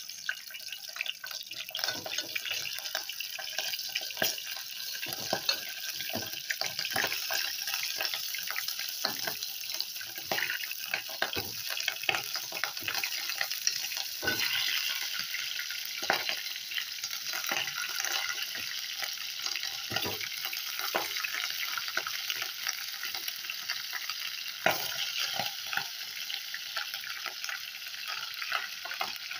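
Chicken pieces sizzling and crackling in hot cooking oil in a steel pot, with a steady hiss and many short pops and clicks as pieces go in.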